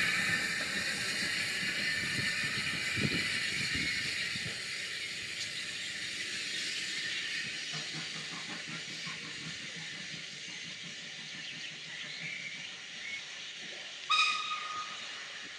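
Small steam tank engine (0-4-0 saddle tank Henry Ellison) hissing steam as it draws away, the hiss slowly fading. Near the end, a short whistle toot.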